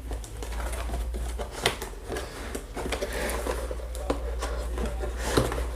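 A cardboard box being opened and its contents handled: rustling with scattered sharp clicks and taps, over a steady low hum.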